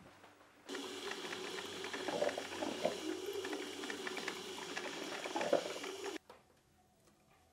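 Electric drip coffee maker brewing, gurgling and hissing as hot water percolates into the carafe. It starts about a second in and cuts off suddenly about six seconds in.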